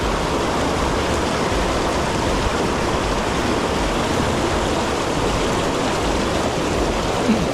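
Mountain stream water rushing steadily, a constant wash of noise.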